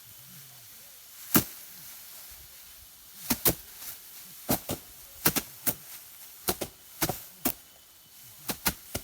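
Rice stalks being cut by hand in a paddy field: a series of about a dozen sharp, crisp snaps, often two in quick succession, irregularly spaced.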